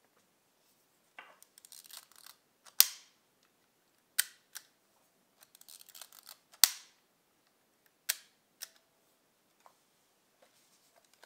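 Minolta Hi-Matic 7s rangefinder being wound and fired twice: a second of fine ratcheting from the film-advance lever, then a sharp shutter click, with a lighter click about a second and a half after each. The freshly cleaned leaf shutter is firing again after its stuck blades were freed with lighter fluid.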